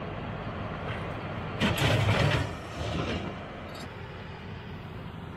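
An engine running steadily in the background, with a louder burst of noise about a second and a half in that lasts under a second.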